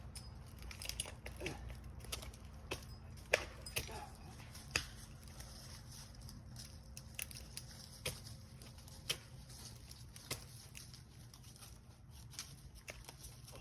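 Climbing spur gaffs stabbing into pine bark as a climber steps up or down the trunk: irregular sharp clicks and knocks about once a second, with bark crackling.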